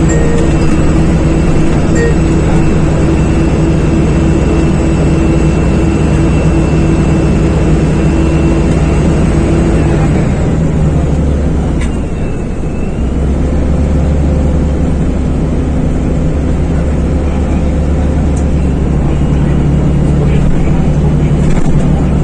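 Loud, steady engine drone with constant humming and whining tones, which change pitch about halfway through.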